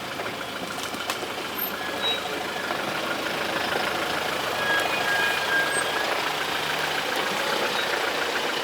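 Four-wheel-drive ute's engine running steadily at low revs while crawling along a rough off-road track, getting slightly louder a few seconds in.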